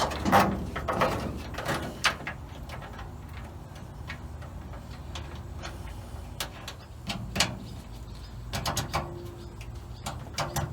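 Scattered clicks, taps and knocks of hands working with small car parts and wiring, over a low steady hum.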